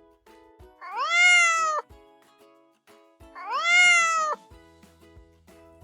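Domestic cat meowing twice, each meow about a second long, rising and then falling in pitch.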